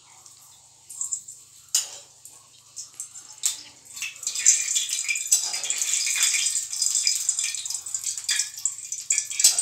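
A steel spoon clinks a few times against small steel bowls while oil is being spooned out. From about halfway in, a steady crackling hiss of hot oil sizzling in a steel kadhai on the gas flame.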